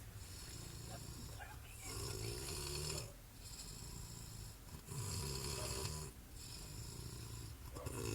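A sleeping person snoring, with about three deep snores spaced roughly three seconds apart. The snoring is put down to drunkenness.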